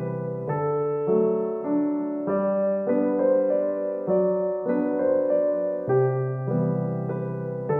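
Background music: a gentle solo piano piece, chords and a melody that change about every half second to second.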